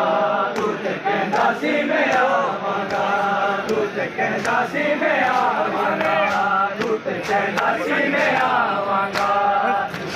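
A crowd of men chanting a mourning lament (noha) together, with sharp slaps of hands on bare chests (matam) scattered through the chant.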